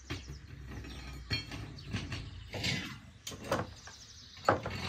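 Irregular knocks, clinks and a scrape of metal and wood at a wood-fired stove as it is tended, over a low rumble.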